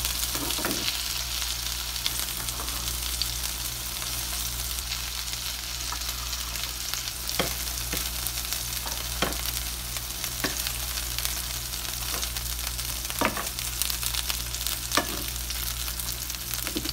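Chicken pieces sizzling as they fry in a nonstick frying pan, with a few sharp clicks of metal tongs against the pan as the golden-brown pieces are lifted out.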